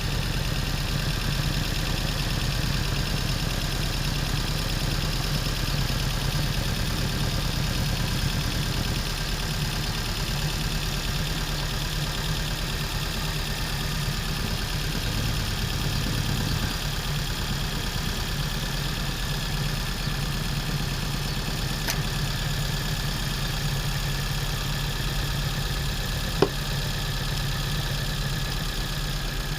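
Car engine idling steadily, with one sharp click near the end.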